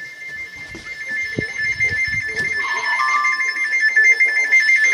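Weather alert radio alarm sounding for a tornado warning: a high two-tone warble that flips rapidly between two pitches and grows louder. A second, lower tone sounds briefly about three seconds in.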